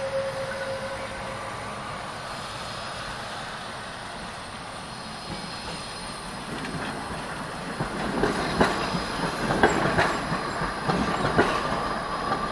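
A city tram passing on street tracks: a steady rolling rumble that grows louder as it comes by, then a run of sharp clacks as its wheels cross rail joints, with a thin wheel squeal over them.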